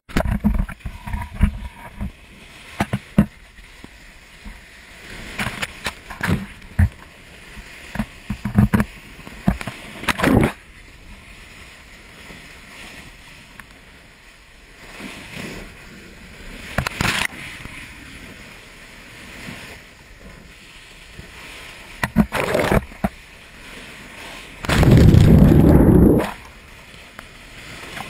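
Sea waves splashing and breaking against a lava-rock shoreline where molten lava pours into the ocean, with scattered sharp cracks and pops. The loudest is one big splashing crash about 25 seconds in, lasting over a second.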